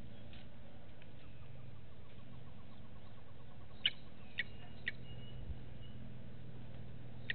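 Outdoor ambience with a steady low hum, broken about four to five seconds in by three sharp high bird chirps and a faint thin whistle.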